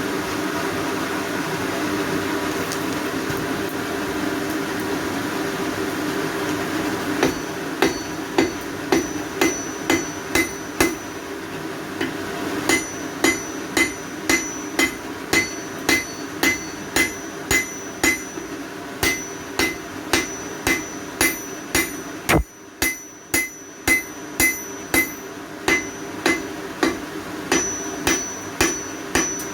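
Hammer blows on hot wrought iron on an anvil, about two a second, each with a short bright ring, starting about seven seconds in after a stretch of steady drone and pausing briefly twice.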